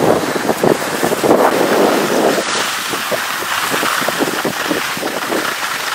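Wind rushing over the microphone of a moving skier, with the hiss and irregular scraping of skis sliding over packed snow.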